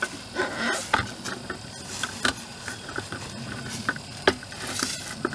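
Handling noise of a camera being picked up, carried and set down: scattered knocks and clicks with rustling in between, the sharpest knock a little after four seconds in.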